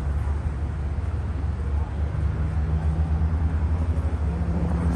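Steady low rumble, with a steady motor-like hum setting in about two seconds in.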